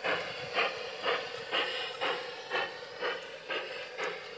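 G-scale garden-railway model steam locomotive chuffing steadily at about two chuffs a second as it hauls its train.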